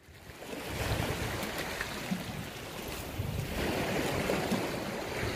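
Sea waves washing on a rocky shore, with wind buffeting the microphone.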